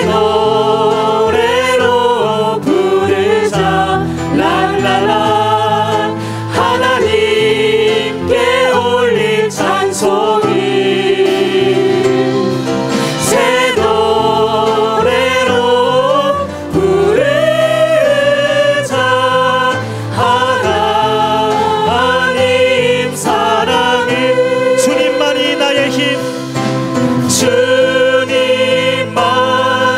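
A mixed-voice church praise team of four women and a man sings a worship song together into microphones over band accompaniment. The singing runs on continuously with sustained, wavering notes.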